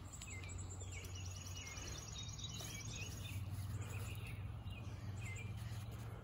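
Birds chirping, with a fast high trill from about one to three seconds in, over a steady low hum of outdoor background noise.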